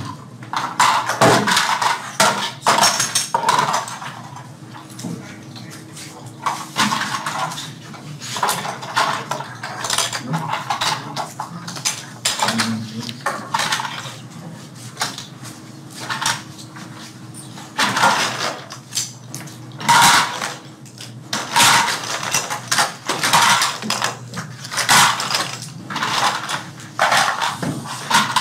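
Small toy-airplane parts being handled, set down and fitted together by hand on an assembly line: a steady run of irregular clicks, taps and clatter.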